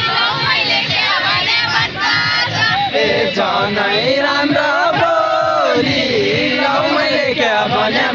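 A large group of voices singing and chanting together, continuous and loud, as in a Deuda folk song sung by a crowd.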